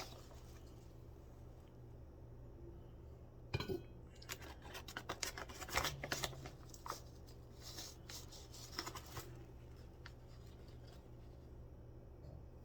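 A metal spoon scooping and tapping ground coffee into a French press: a scattered run of light scrapes and clicks in the middle, over a faint steady hum.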